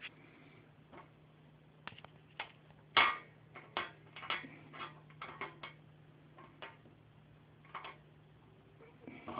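Scattered clicks and light knocks of small plastic washing-machine agitator cogs being handled, the loudest about three seconds in, over a faint steady hum.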